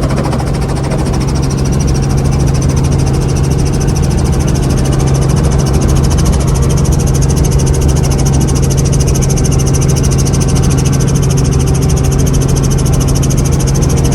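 Helicopter in flight: engine and rotor noise as one loud, steady drone with a strong low hum, unchanging throughout.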